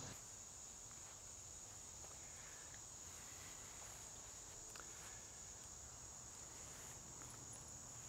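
Faint, steady high-pitched trill of crickets; otherwise near silence.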